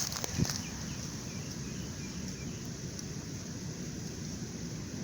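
Outdoor ambience: a steady low rumble of wind on the microphone, with a few clicks and a knock of handling in the first half second and faint, repeated small bird chirps.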